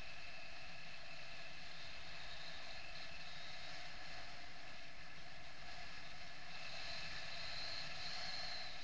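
Wind noise from the airflow past a paraglider in flight: a steady rush of air on the microphone with a few held whistling tones, one of which grows louder near the end.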